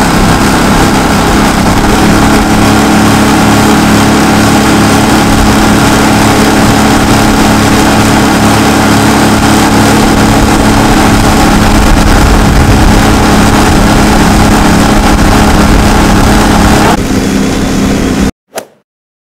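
Mud Buddy 35HD surface-drive mud motor running at full throttle, pushing a jon boat at speed, with a heavy rush of wind and spray. Near the end the engine note drops, and then the sound cuts off.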